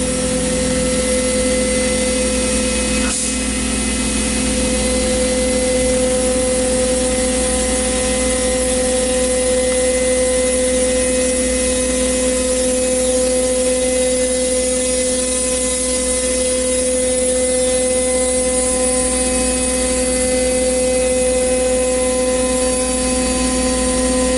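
CNC router spindle running at a steady high whine while its bit cuts through expanded polystyrene foam in a test cut. A single brief click about three seconds in.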